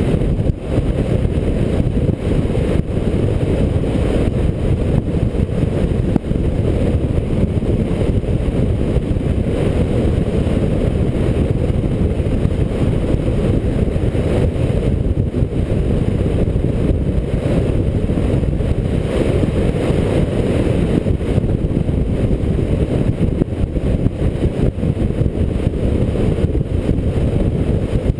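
Steady wind rumble over a roof-mounted GoPro at highway speed, mixed with the car's road and tyre noise.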